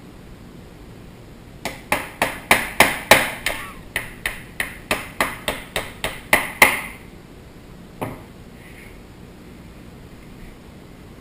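A plastic-faced mallet taps repeatedly on the metal receiver of an Armsan A612 shotgun: about eighteen quick strikes, three or four a second, each with a short metallic ring. About a second later comes one softer tap.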